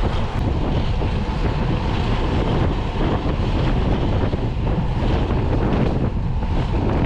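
Steady wind buffeting the microphone: a constant low rumble with no breaks.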